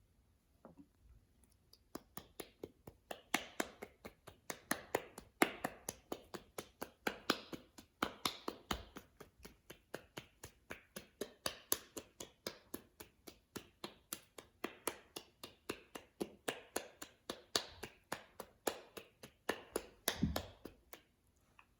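Slime being squeezed and poked by hand, giving a long run of sharp clicking pops, several a second, starting about two seconds in.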